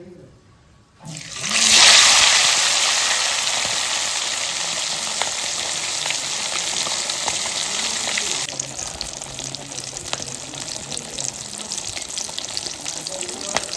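Chicken legs going into hot oil: a sudden loud sizzle about a second in that slowly eases off, then turns quieter about eight seconds in and goes on as steady deep-frying with small crackling pops.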